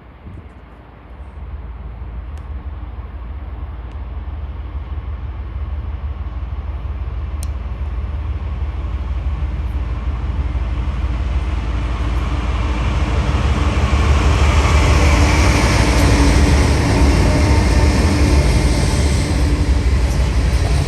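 Freight train approaching: diesel locomotive engine rumble and rail noise growing steadily louder, nearest near the end.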